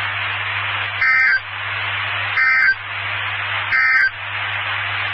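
NOAA Weather Radio SAME end-of-message code: three short, raspy two-tone digital data bursts about 1.3 s apart over steady radio hiss. The bursts signal the end of the alert message.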